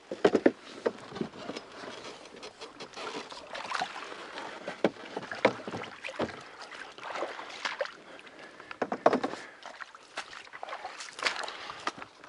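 Kayak and paddle knocking irregularly with water sloshing: several sharp knocks and thuds over a steady hiss.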